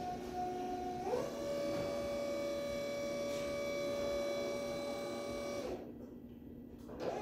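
Electric lift motor of a TAWI lifting trolley whining steadily as it raises a pail. The whine steps up in pitch about a second in, cuts off a little over a second before the end, then starts again just at the end.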